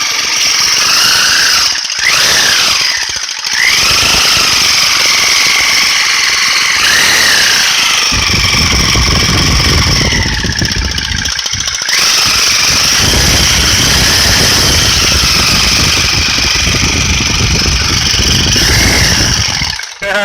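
Electric jigsaw running loudly with a high, steady squeal. Its pitch slides up and down, and the sound dips briefly a few times.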